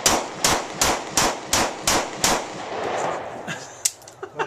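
Gun fired in quick succession, about seven evenly spaced shots a little under half a second apart, each with a short echo. Near the end come a few lighter, sharp clicks.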